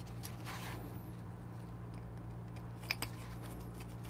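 Two small, sharp metal clicks about three seconds in, from burr screws and a screwdriver being fitted into a DF64P grinder's metal burr carrier, after a faint rustle of handling. A steady faint low hum runs underneath.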